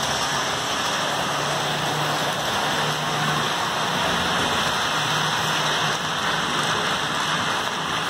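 HO scale model trains running on the layout's track: a steady rushing hiss of metal wheels rolling on rails, with a faint low motor hum that swells and fades.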